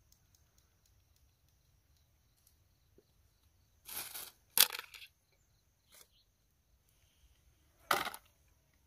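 Rusty tin cans being shifted by hand: a scraping rattle about four seconds in, a sharp metallic clink just after, and another loud clink near the end.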